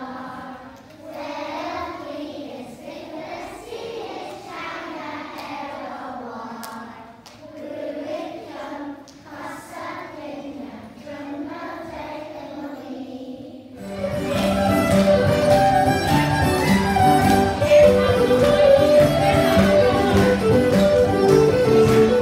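A group of children singing together, fairly softly. About fourteen seconds in it cuts abruptly to louder traditional folk music with fiddle.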